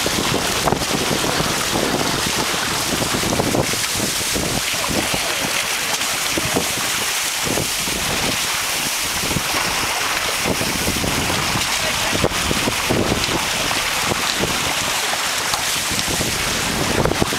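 Steady wind noise on the microphone, with water rushing along the hulls of a Stiletto sailing catamaran under way. The low end rises and falls unevenly with the gusts.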